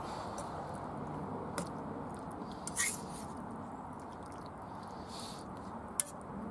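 Spoon stirring chicken pieces through thick curry sauce simmering in a pan: steady wet squelching and bubbling, with a few light clicks of the spoon against the pan.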